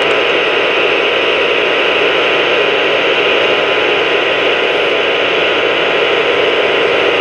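President McKinley CB radio's speaker giving out steady, loud receiver static.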